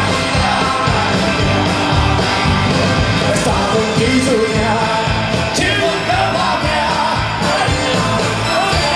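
Live rock band playing loudly, led by electric guitar, with a man singing over it.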